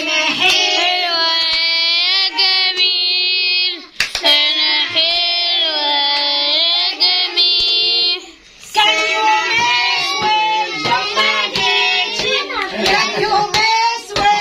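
A child's high voice singing a birthday song in two long phrases, then from about nine seconds in several voices singing together over clapping.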